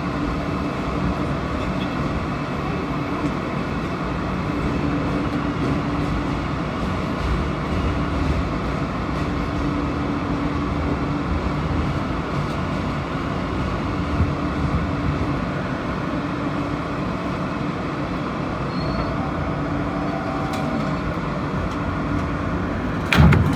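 Alstom R160A subway car running at speed, heard from inside: a steady rumble of wheels on rail with a low steady hum. One sharp bang comes near the end.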